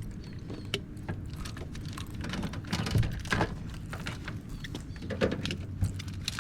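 Irregular clicks, knocks and light rattles of parts being handled: hands shifting the washer's drain pump assembly and hoses, over a low steady hum.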